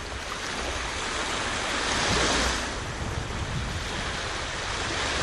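Sea surf washing onto the shore, a steady hiss of breaking waves that swells about two seconds in and again at the end. Wind rumbles on the microphone underneath.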